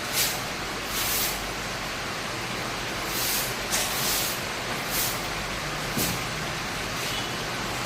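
Several short bursts of hissing air, irregularly spaced over a steady background noise, with a sharp click about six seconds in.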